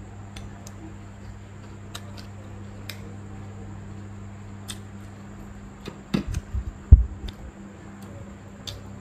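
Quiet eating sounds: chopsticks clicking lightly against a porcelain rice bowl every second or so, and a short cluster of low knocks about six to seven seconds in, the loudest of them near seven seconds. A steady low hum runs underneath.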